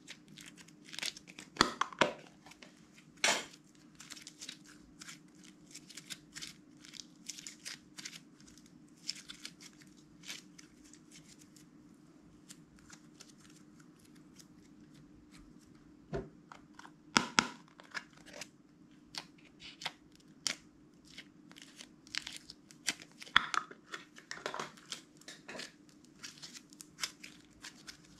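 Hands squeezing and kneading sticky slime mixed with small beads, giving irregular wet clicks, crackles and pops, with a few louder pops now and then. A faint steady hum runs underneath.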